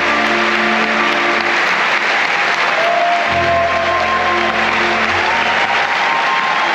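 Concert audience applauding while music with long held chords and a slow melody plays.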